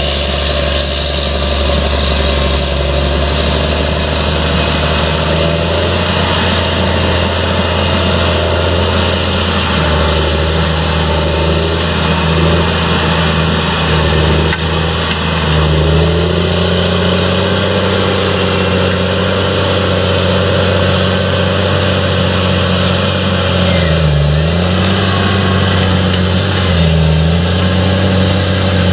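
An engine running steadily, its pitch dipping briefly and coming back twice near the end.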